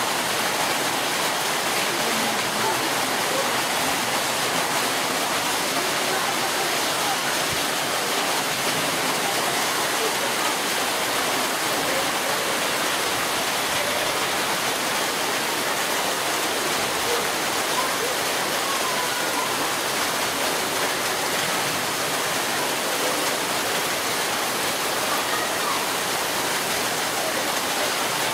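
Heavy rain pouring down steadily, a dense even hiss of rain falling on the ground.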